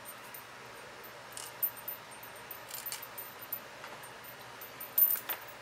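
Scattered light clicks and clinks of small craft items being handled on a desk, the loudest a quick cluster about five seconds in.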